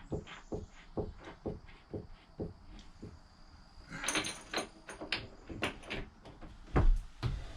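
Light clicks and knocks, about two to three a second, from hand tools and hardware as bolts with washers are fitted and tightened through a wooden seat base. A brief rasping patch comes about four seconds in, and a heavy thump near the end.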